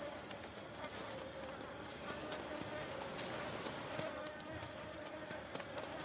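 Insects chirping in a high, rapid pulsed trill, repeated in short bursts about twice a second, over a faint steady hum.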